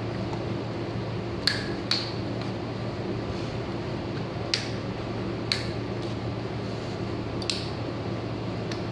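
About six sharp plastic clicks at uneven intervals as a stroller's front swivel-wheel unit is pushed onto its leg and its clip worked, over a steady fan hum.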